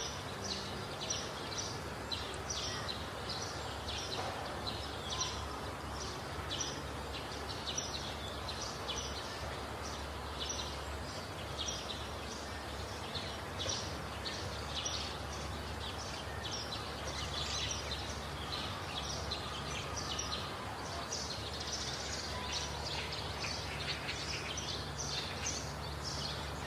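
Outdoor evening ambience: a constant run of short high chirps, several a second, over a low steady hum.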